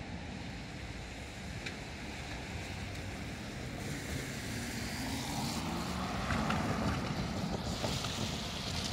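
Two EMD diesel road-switcher locomotives, a GP9RM and a GP38-2, running light and approaching, their engine rumble growing louder.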